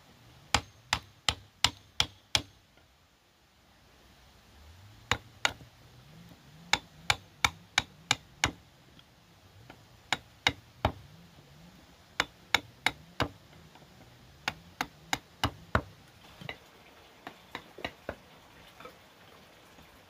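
Hammer striking a chisel cutting into a wooden board: sharp knocks in quick runs of three to six strikes, about two or three a second, with short pauses between runs. The last few strikes, near the end, are lighter.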